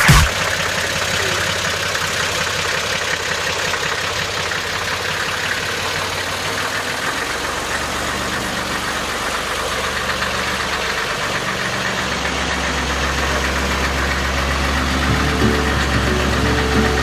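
Vintage Magirus-Deutz fire trucks' diesel engines idling, a steady low running note that grows heavier about seven seconds in.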